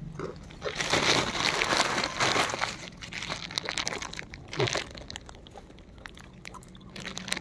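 Thin plastic bag crinkling and rustling as it is handled and snacks are taken out by hand, densest for about two seconds near the start, then lighter scattered crinkles.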